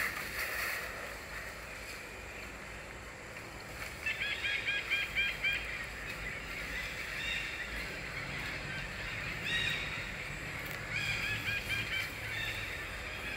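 An animal calling in several bursts of quick, short, honk-like notes, the first burst about four seconds in.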